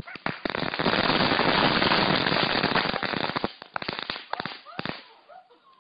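A dense, rapid run of crackling bangs for about three seconds, thinning out into a few scattered single pops before stopping.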